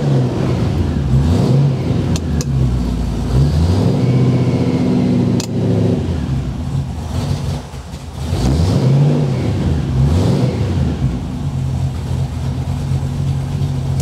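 MGB GT engine running and revved up and down several times, with steadier running in between.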